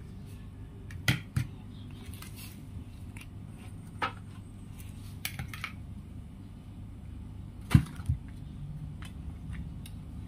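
Metal spoon tapping and clinking against a bowl and aluminium foil trays while corn mixture is spooned out: a handful of short sharp taps, the loudest about three-quarters of the way through, over a steady low hum.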